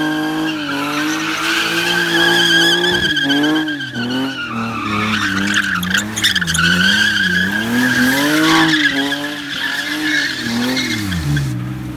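BMW 330i's inline-six repeatedly revving up and down while its rear tyres squeal continuously, spinning in a smoky burnout drift. The revs drop away near the end.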